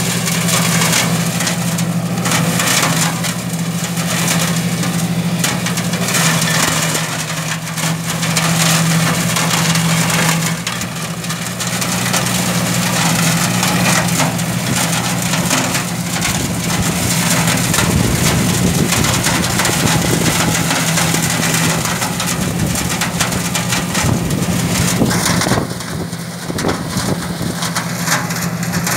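Shaktiman side-discharge flail mower on a compact tractor, its rotor shredding pruned vine branches and leaves: a steady engine and rotor hum under a constant dense crackle and clatter of material being smashed by the flails.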